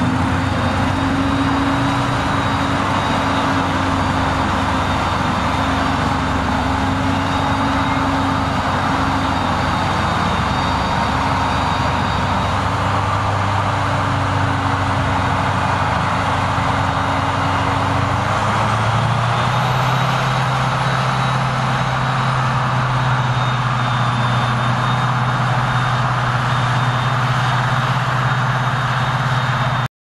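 Claas Jaguar self-propelled forage harvester running under load as it chops maize, a steady heavy engine drone with the machine's noise spread over it. About two-thirds of the way through, the drone steps up to a slightly higher pitch.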